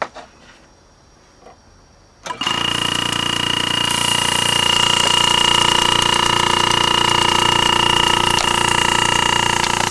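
Vintage reciprocating refrigeration compressor, opened out of its hermetic shell, switching on with a click about two and a half seconds in and then running steadily: a hum with a high whine over it.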